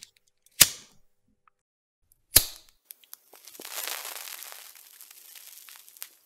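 Two sharp cracks about two seconds apart, then a few small ticks and about three seconds of even crackling noise that ends with a snap.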